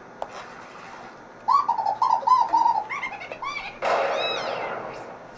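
Cartoon bird chirping: a quick string of short, pitched calls starting about a second and a half in, then a louder, rougher burst with falling whistles near the end.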